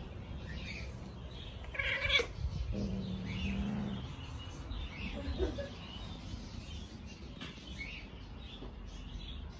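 A domestic cat meowing: a loud call about two seconds in, then a lower, steadier call, and a shorter call about five seconds in.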